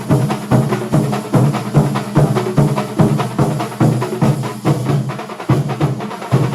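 Kerala thambolam percussion ensemble playing a fast, steady drum rhythm, with sharp strikes over a sustained low tone.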